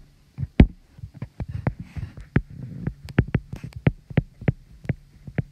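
Stylus tip tapping on a tablet's glass screen during handwriting: a quick, irregular run of sharp taps, about five a second, over a faint steady hum.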